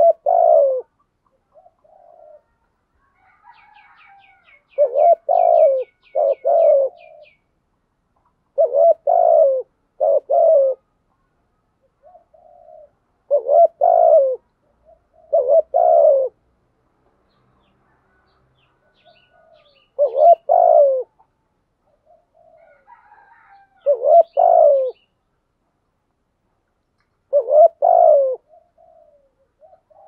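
Spotted dove cooing in repeated phrases of two or three notes, each phrase a second or two long, about every three to four seconds, with softer single coos between them. A quick run of thin high chirps from a small bird sounds a few seconds in.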